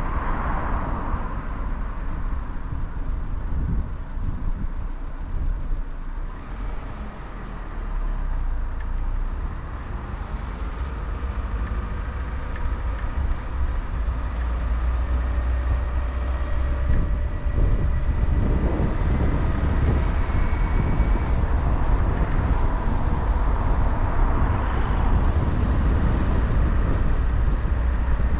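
Car driving on the road: a steady low rumble of engine and tyres that grows louder a little past halfway and stays so.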